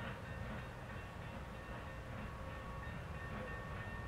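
Union Pacific 3985, a 4-6-6-4 Challenger steam locomotive, working hard in the distance as it pulls away: a steady low rumble.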